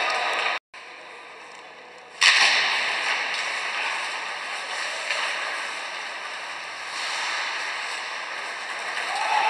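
Ice hockey rink sound from the stands: a steady hiss of crowd and skating noise with a few faint sharp clacks of sticks and puck. The sound cuts out briefly under a second in and returns with a sudden loud swell about two seconds in that slowly dies down.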